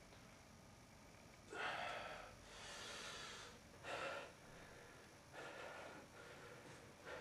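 A man breathing heavily, about five audible breaths in and out.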